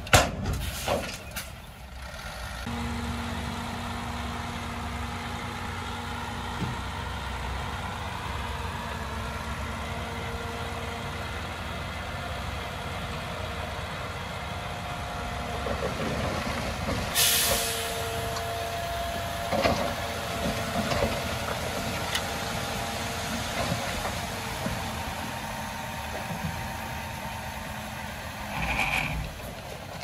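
Diesel engine of heavy earthmoving machinery running steadily, with a few sharp clanks right at the start and a short burst of hiss about halfway through.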